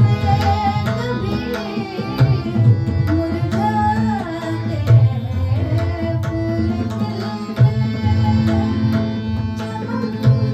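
Tabla playing a rhythmic cycle of quick strokes with recurring deep bass strokes from the bayan, over sustained keyboard chords and a melodic line, accompanying a ghazal.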